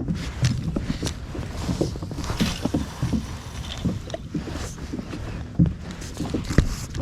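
Irregular knocks and thumps on a fishing kayak, over a steady low rumble.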